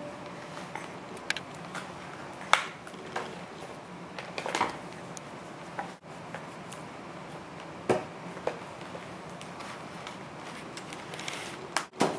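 Scattered light taps and clicks of a paintbrush working in a plastic watercolour paint tray and water cup, over quiet room tone.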